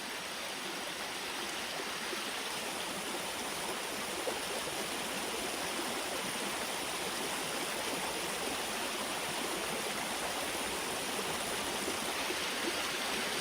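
Water of a waterfall and stream rushing steadily, an even, unbroken wash of sound.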